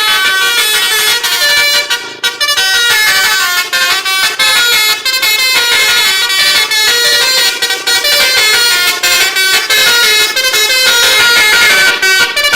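Bus 'telolet' musical air horns playing a fast, loud melody of short stepped notes that jump up and down in pitch, going on almost without a break.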